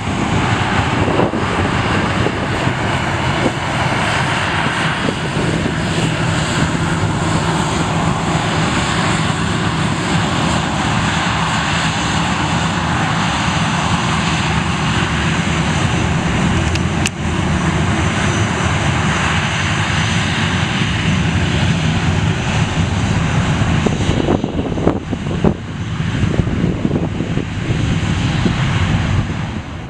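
Jet engines of a taxiing Boeing 737 airliner running at low taxi thrust close by: a steady, loud rushing noise with a low drone underneath. A single sharp click sounds about halfway through.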